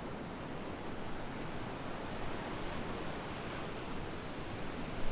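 Sea waves washing steadily onto the shore, a continuous rushing hiss of surf.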